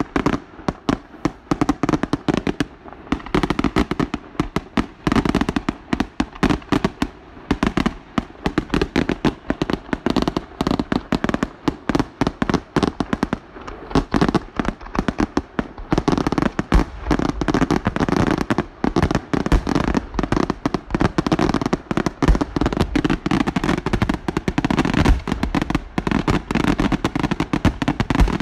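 Aerial fireworks display: a rapid, unbroken run of bangs from bursting shells, coming thicker and louder from about halfway through.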